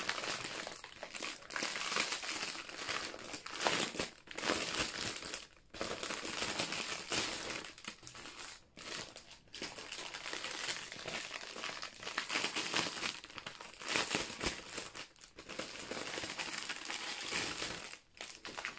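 Clear plastic bag crinkling as hands turn and squeeze it, the packaging of a bundle of diamond-painting drill packets, in a near-continuous run with a few brief pauses.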